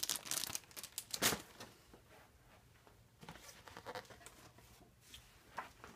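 Rustling and crinkling of plastic bags holding model kit parts as they are handled, with a louder crinkle about a second in and fainter rustles later.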